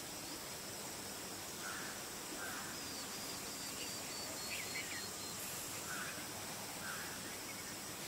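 Faint bird calls over a steady high hiss: a quick run of about ten short, high notes in the middle, among a few softer, lower calls.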